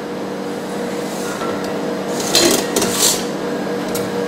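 Metal scraping and clatter from a chocolate guitar cutter, a scraper worked against its steel cutting wires and its frame handled: two short scrapes a little past the middle and a sharp click near the end, over a steady machine hum.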